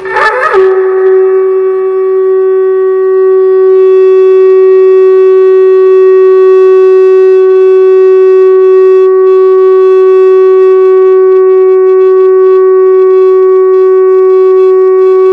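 Conch shell (shankh) blown in one long held note, steady in pitch and loud, after a brief rough break in the sound right at the start.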